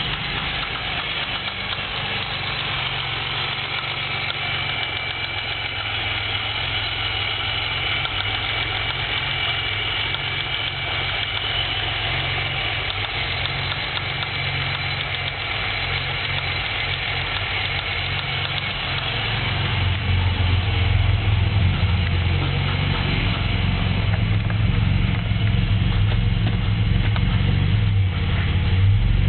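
GM 3800 (3.8-litre) V6 running with a steady knock from a spun connecting-rod bearing. The engine gets louder about twenty seconds in.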